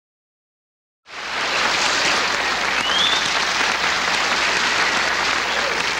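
Silence for about a second, then a studio audience applauding steadily.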